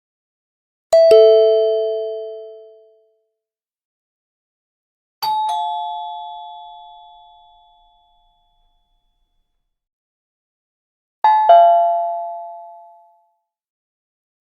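Three doorbell chimes, each a quick two-note ding-dong with the second note lower, coming about five seconds apart. Each rings out and fades over two to three seconds, and each chime is at a different pitch.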